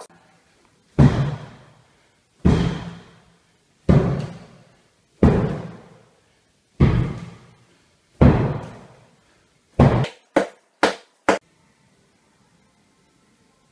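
Medicine ball slammed hard into a gym floor six times, about one and a half seconds apart, each a heavy thud that rings out in the room. Four lighter, quicker thuds follow near the end.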